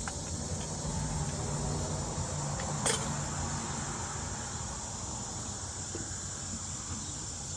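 Steady, high-pitched chorus of cicadas buzzing without a break, over a low hum, with a single short click about three seconds in.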